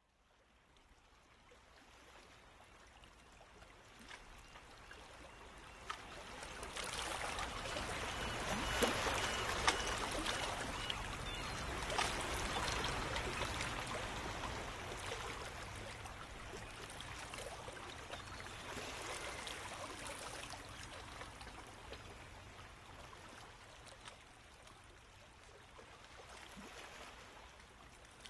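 Running, trickling water that fades in, swells to its loudest about a third of the way through, then slowly eases off, with faint scattered ticks.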